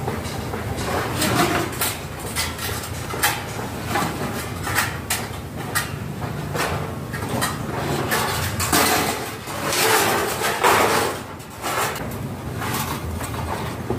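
Hand work on rough timber: irregular knocks and clatter, with a few longer scraping swells about two-thirds of the way through.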